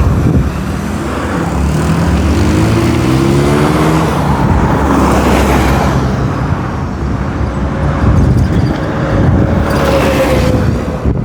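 Roadside traffic: a continuous rush of tyre and engine noise from passing vehicles. About a second and a half in, one engine rises in pitch as it accelerates, and several cars swish past later on.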